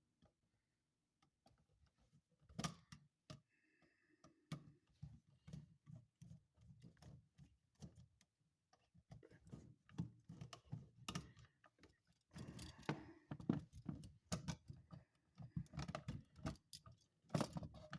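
Scattered small clicks, taps and rustling from hand work on a wall receptacle's wiring as the wires are taken off its terminal screws, growing busier in the second half.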